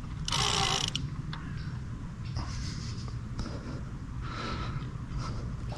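Fishing reel working against a hooked carp: short bursts of drag and winding noise, the loudest about half a second in and more in the middle, over a steady low rumble.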